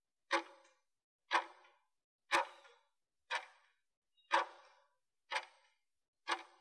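Clock ticking, one short sharp tick a second with silence between, counting down the last seconds of a work interval.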